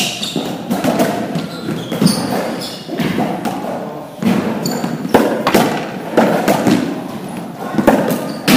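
Racquetball rally: the rubber ball strikes racquets and the court walls again and again, each hit echoing around the enclosed court, with short squeaks of court shoes in between.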